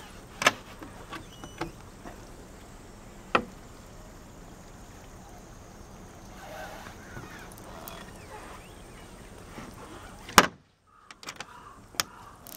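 Fibreglass deck hatch lid on a small boat being handled: a few sharp knocks, the loudest about ten seconds in as the lid shuts, with small clicks after it, over a steady low hiss.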